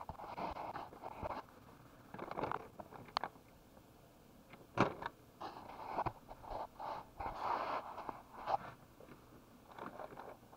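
Hands handling a plastic toy RC forklift: a run of short rustles and scrapes with several sharp clicks, the sharpest click about five seconds in.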